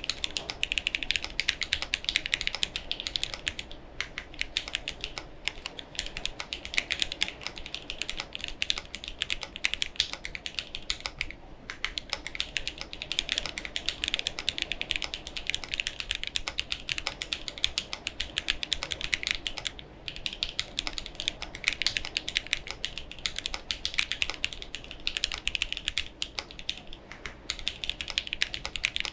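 Mechanical keyboard with Gateron Ink Black linear switches, tuned Staebies stabilizers, GMK Norse keycaps and no case foam being typed on in fast, continuous runs of keystrokes. There are brief pauses a few times.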